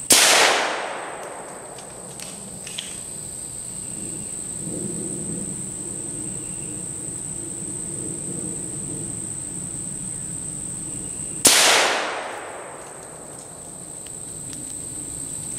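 Two rimfire magnum rifle shots about eleven seconds apart, each a sharp crack followed by an echo that dies away over about a second. Crickets keep up a steady high chirring throughout.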